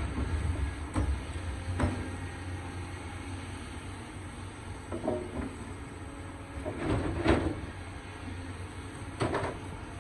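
Excavator at work: a steady low diesel engine rumble, broken by several metallic clanks and knocks, the loudest cluster a little past the middle.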